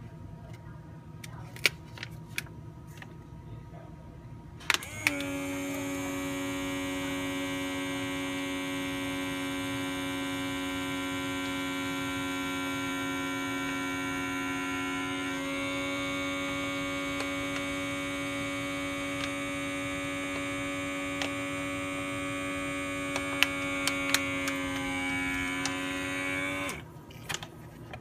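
Dr. Save handheld electric vacuum pump running on the valve of a vacuum bag, drawing the air out: a steady motor hum with a higher whine, starting about five seconds in after a few handling clicks. Its tone wavers slightly near the end, and it stops about a second before the end.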